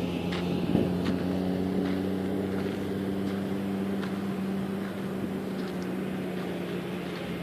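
A vehicle engine running at a steady, unchanging pitch, slowly fading.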